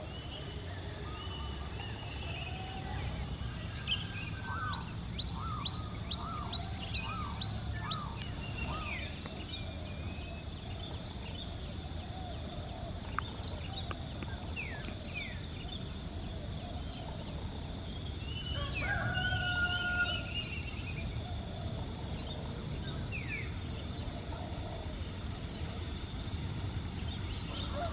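Birds chirping and whistling in the early morning: many short, quick calls, with a louder, longer call with several tones about two-thirds of the way through. A steady low rumble runs underneath.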